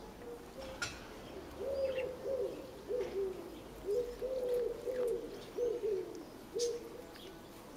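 A pigeon cooing: a string of low notes that each fall away at the end, starting about two seconds in and stopping shortly before the end. A few faint short clicks come between them.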